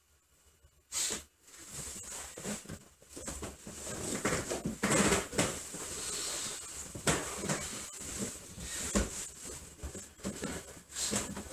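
Karate uniforms rustling and bare feet on a wooden dojo floor as karateka rise from kneeling and step into Sanchin stance, starting with a sudden thump about a second in. Hissing breaths come and go every couple of seconds, typical of Sanchin's forced breathing.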